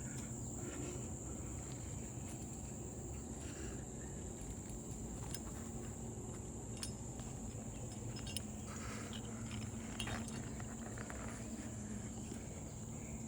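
Insects chirring in one steady, high, unbroken drone, with a few faint clicks scattered through it.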